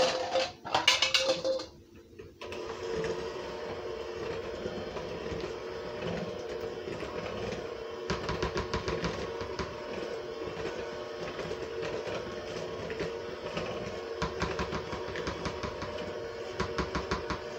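Electric hand mixer starting about two seconds in and running steadily with its beaters in cake batter, with runs of rapid clicking about eight seconds in and again near the end.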